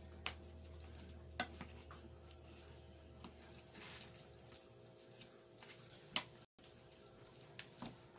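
Mashed boiled squash batter being stirred and squeezed in a bowl with a plastic spoon and fingers: quiet mixing with a few sharp clicks of the spoon against the bowl.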